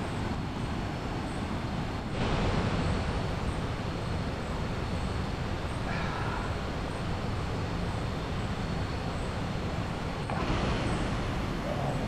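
Steady rushing of a river flowing past, with a thin steady high tone and a faint high chirp repeating a little faster than once a second above it.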